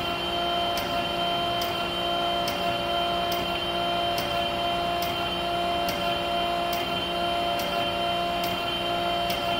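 Okamoto ACC 8-20 DX automatic surface grinder running under automatic feed: a steady hum with several held tones from its spindle and hydraulic drive, and a faint tick a little more than once a second.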